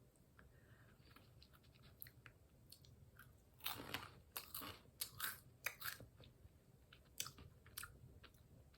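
A person chewing crunchy puffed corn cheese balls (HBAF ball corn snack, cheese nacho flavour): faint crunches that grow into a run of louder bites about three and a half seconds in.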